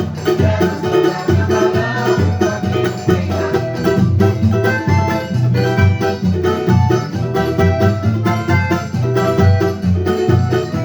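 Handmade banjo with an imbuia body, Swedish pine top and jacarandá bridge, plucked in a quick melodic line, with steady low bass notes underneath.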